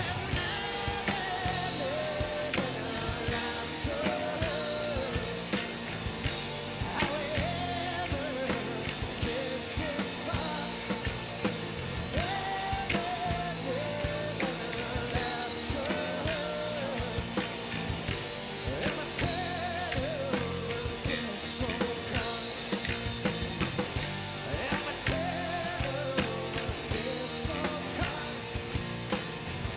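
Rock band playing live: a male singer over electric and acoustic guitars and a drum kit.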